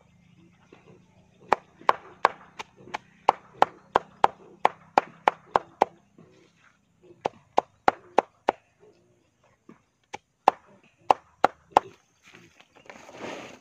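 A large machete-like blade chopping a banana stem into small pieces against a board: quick, sharp strokes about three a second, in three runs with short pauses between.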